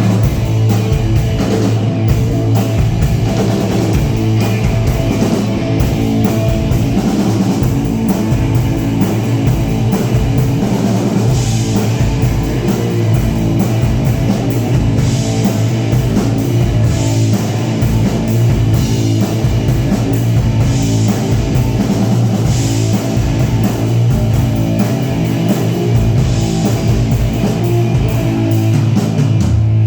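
Rock band playing heavy rock: electric guitar over a drum kit, loud and dense with regular drum hits.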